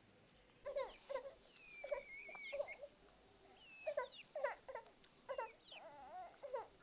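An animal's repeated short, high-pitched cries, each bending up and down in pitch, with a thinner, higher wavering call about a second and a half in.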